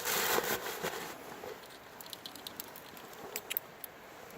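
Hands handling small fishing tackle: a brief rustle during the first second, then faint scattered small clicks.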